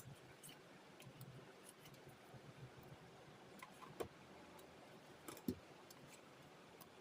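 Near silence: room tone with scattered faint clicks and two light knocks, about four and five and a half seconds in.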